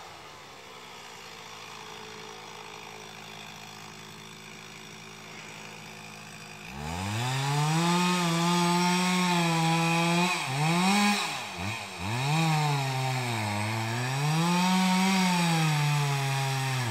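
Two-stroke chainsaw running at a steady pitch and fairly quietly, then about seven seconds in going much louder, revving hard with its pitch dropping and climbing again several times as it cuts into the trunk of a large beech.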